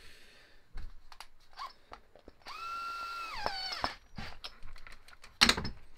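Cordless drill-driver running for about a second and a half on the wheel nut of an RC crawler's wheel; its whine holds steady, then drops in pitch and stops. Small clicks of handling parts come before it, and a sharp knock follows near the end.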